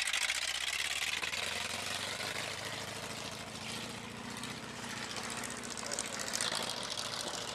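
Engine of a 1979 Dodge van running as the van pulls past and drives away, loudest at first and growing fainter over the first few seconds.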